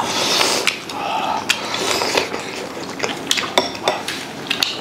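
Chopsticks clicking against ceramic bowls in a run of short, sharp taps while eating from a small bowl, with a slurp at the start.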